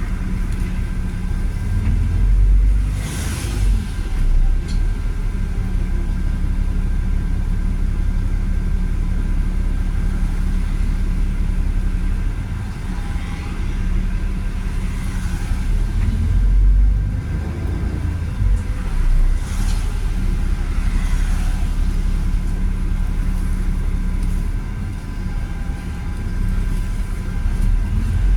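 Volvo B7RLE bus's six-cylinder diesel and Voith automatic gearbox running on the move, a continuous low rumble with a faint steady whine. The rumble swells every few seconds, loudest about three seconds in and again about halfway.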